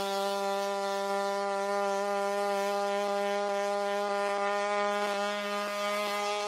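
Boston Dynamics WildCat quadruped robot's on-board combustion engine running with a steady, unchanging buzz while the robot gallops. A few faint clicks come through from about three seconds in.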